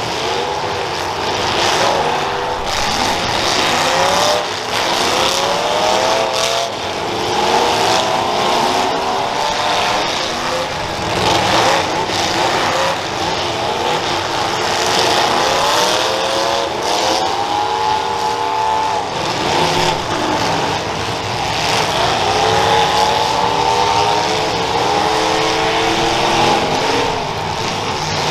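Several demolition derby car engines revving over and over, their pitch rising and falling, with more than one engine going at once.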